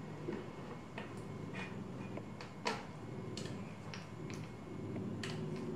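Scattered light clicks and ticks of bicycle parts and tools being handled during assembly, at irregular intervals, with one sharper click about three seconds in.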